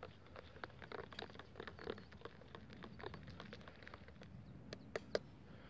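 Faint scraping and small irregular ticks of a metal spoon stirring coffee in a disposable cup, with two sharper clicks near the end.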